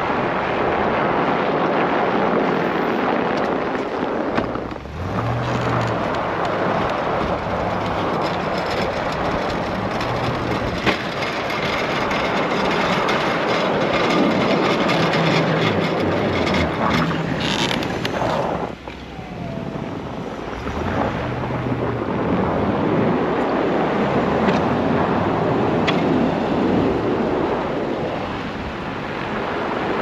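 Strong wind buffeting the microphone over a plow truck's engine running, the engine faintly rising and falling underneath. The noise dips briefly about two-thirds of the way through.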